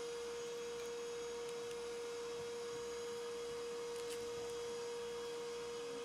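A steady hum on one even pitch, held level throughout over faint background hiss; no distinct cutting or knocking sounds stand out.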